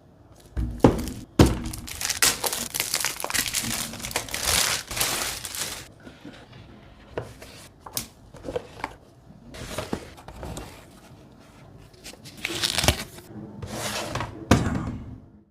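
Graphics card packaging being handled: plastic and cardboard crinkling and rustling, with two sharp knocks about a second in, a long stretch of steady crinkling, then scattered rustles and taps and a final louder crinkle near the end.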